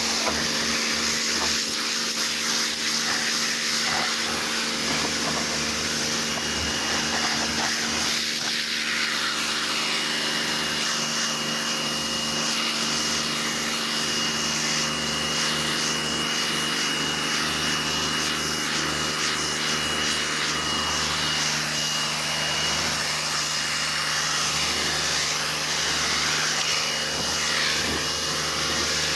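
Pressure washer running steadily, its motor and pump giving a constant hum under the spray of water.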